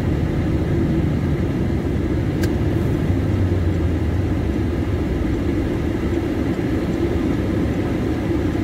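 Steady engine and road noise heard inside the cabin of a moving car, a low rumble.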